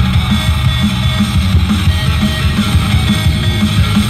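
Rock music with guitar and drums and a steady, even beat.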